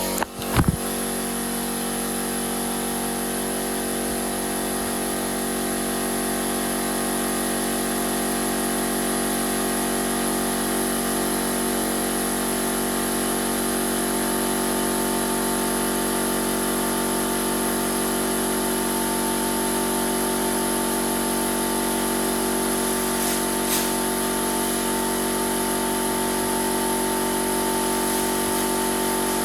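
Small portable air compressor running steadily under load, filling an added air tank; a harsh, grating machine sound. A brief knock just after the start.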